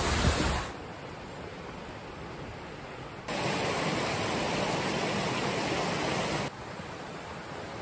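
Steady rushing of a waterfall, cut into several short shots: the level jumps up abruptly about three seconds in and drops back about six and a half seconds in.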